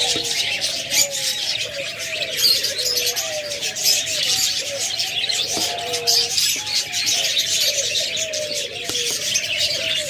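Doves cooing over and over in low gliding calls against a dense, constant chirping and chattering of many small cage birds such as lovebirds.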